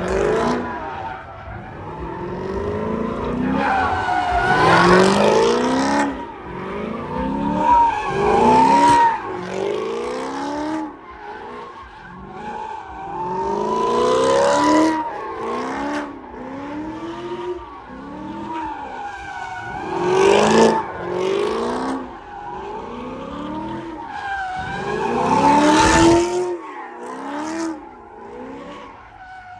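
Car engine revving hard in rising and falling surges every second or two as a white Chevrolet Camaro spins donuts, with tyre squeal swelling into several louder peaks.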